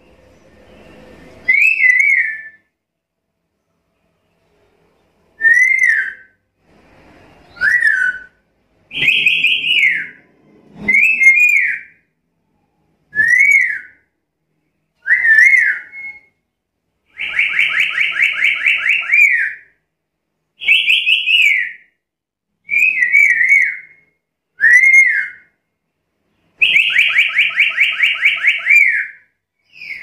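Black-capped lory (Lorius lory) giving a series of loud, shrill whistled calls, each a short note that rises and then falls, about a dozen spaced a second or two apart. Twice, once near the middle and once near the end, a call runs on for a couple of seconds as a rapid string of pulsed notes.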